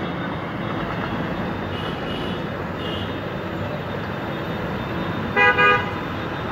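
Two short, loud vehicle-horn toots close together about five and a half seconds in, over a steady rushing street noise.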